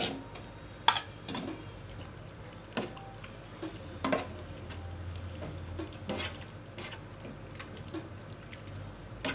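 Pork belly pieces being stirred into coconut milk in an aluminium cooking pot: irregular clinks and knocks against the pot with light liquid sloshing, the loudest knock about a second in.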